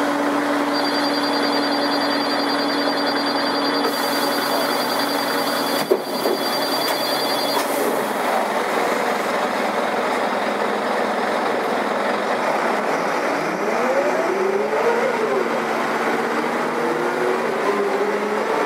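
Karosa B941 articulated city bus's diesel engine running steadily, with a high ringing tone over it for several seconds and a sharp thump about six seconds in. Later the engine note rises and falls in glides, as when the bus accelerates through its gears.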